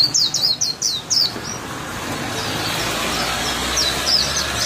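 White-eye chirping in a rapid series of short, high notes that break off about a second in. A passing vehicle's noise swells through the middle, and the chirps start again near the end.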